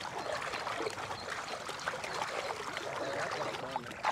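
Water trickling and splashing with a steady, busy babble.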